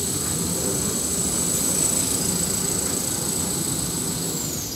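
Kitchen towel paper production line running: a steady high-pitched whine over a low mechanical rumble. Near the end the whine glides down in pitch.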